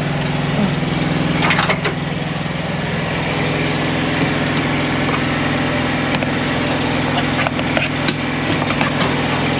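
Small diesel engine of a Carrier X4 7500 trailer refrigeration unit running steadily, with a few light clicks about a second and a half in.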